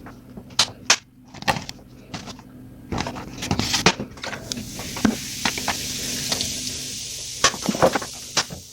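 Several sharp clicks and knocks of handling, with a steady hiss from about three seconds in until near the end.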